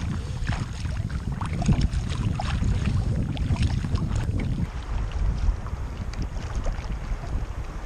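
Sea water splashing and sloshing around a kayak and its camera in a swell, with heavy wind rumble on the microphone. The splashing eases a little after about four and a half seconds.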